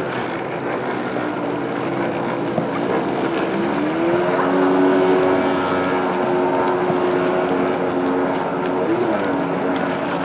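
Jet ski engine running, its pitch rising about four seconds in and then holding steady, with a brief waver near the end.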